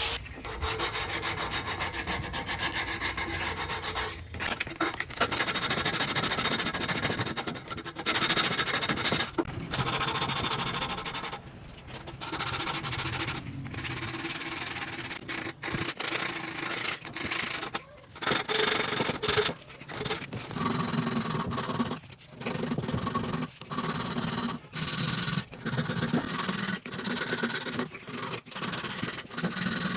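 Abrasive rubbing and scraping on a part of an old pump being restored, in runs of strokes broken by short pauses.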